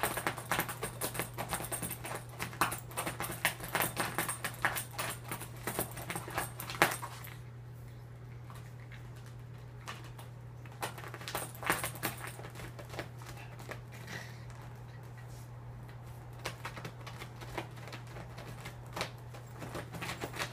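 Chihuahua scratching and clawing at the fabric and rubber-banded zippers of a pet stroller she is shut in, trying to get out. The rapid scratching and rattling stops about seven seconds in, after which there are only occasional scratches, over a steady low hum.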